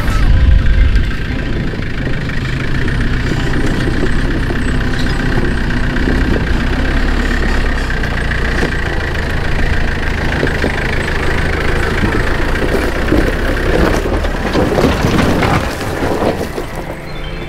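Four-wheel-drive ute's diesel engine running at low revs as it crawls down a steep rocky track, with a rougher, noisier stretch near the end.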